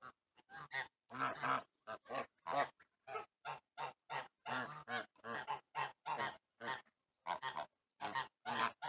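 Domestic geese honking: a rapid run of short calls, about two or three a second, with a brief pause about seven seconds in.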